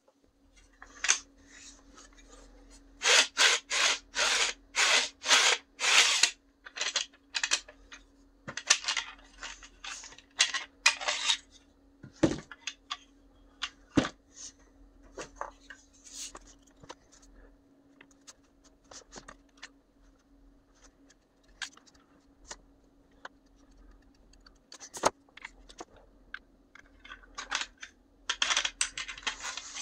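3D-printed plastic crossbow parts being handled and fitted together by hand: a quick run of short scrapes and clicks a few seconds in, then scattered clicks and knocks, with a faint steady hum underneath.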